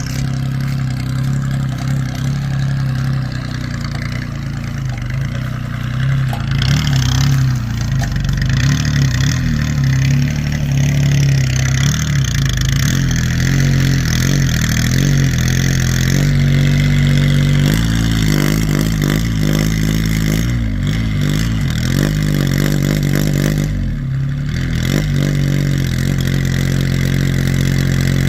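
Small diesel engine of a mini 4×4 farm buggy running steadily, its revs rising and falling from about halfway through.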